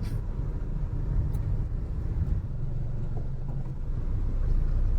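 Steady low rumble of a vehicle on the move: road and wind noise, without any clear engine note.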